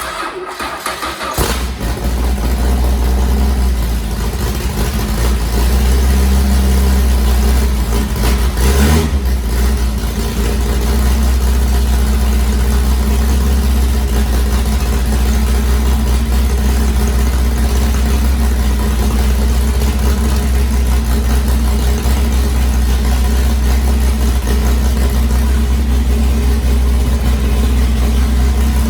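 Chrysler Hemi 265 straight-six with a CNC-ported head cranking, catching within the first couple of seconds, then running at a steady idle to warm up.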